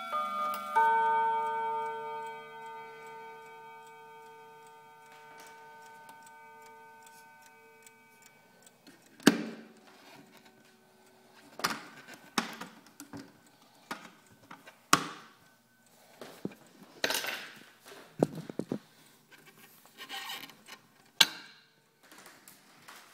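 Seth Thomas mantel clock's chime rods struck about a second in, the tones ringing down over about eight seconds. Then a string of irregular sharp knocks and bumps as the camera is handled and moved.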